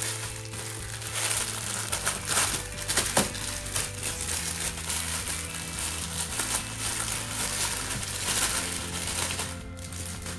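Clear plastic packaging crinkling as bags of diamond-painting beads are handled and opened, in irregular crackles, over background music with held tones.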